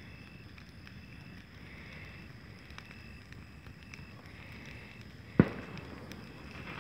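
Bonfire of dry brush and branches burning, with a low rumble and scattered faint crackles. About five seconds in, one sharp, loud bang stands out above the fire.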